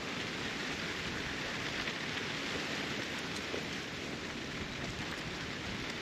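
Wind: a steady rushing hiss with an uneven low rumble of gusts buffeting the microphone.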